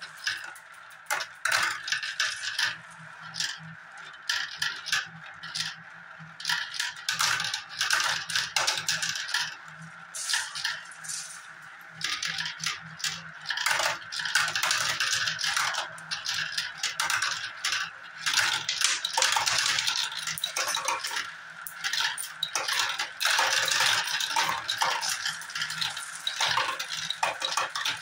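Balls rolling round the clear plastic funnels of a marble run and dropping down its tubes, a constant busy rattle of small clicks. It thickens about halfway through as more balls come into play.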